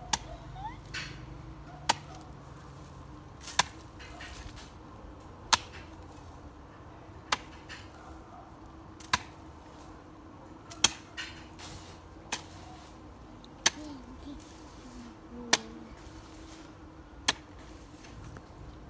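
A hand hoe chopping into dry, crumbly garden soil with about a dozen sharp strikes, roughly one every two seconds in a steady rhythm.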